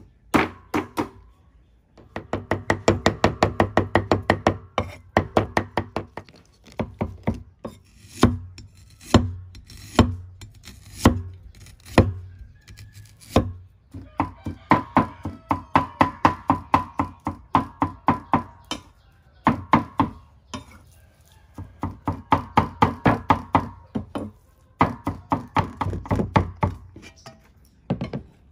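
Meat cleaver mincing raw pork on a thick wooden chopping block. Runs of rapid chops come several a second, with slower single chops about once a second in the middle.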